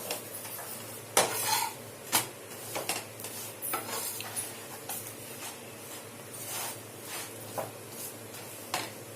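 Intermittent clinks and scrapes of a utensil on a griddle as a chapati cooks on it, the loudest about a second in and again about two seconds in.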